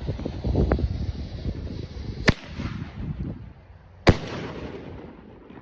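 Single-shot firework going off: a sharp bang as the shell launches, then about two seconds later a louder bang as it bursts, fading away.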